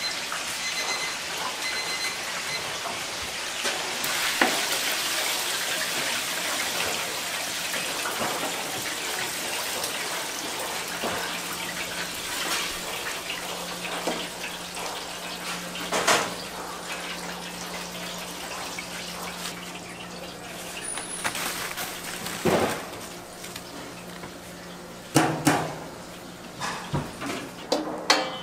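Chicken drumsticks deep-frying in hot oil, sizzling with a steady hiss that gradually fades, with a few sharp knocks, most of them close together near the end.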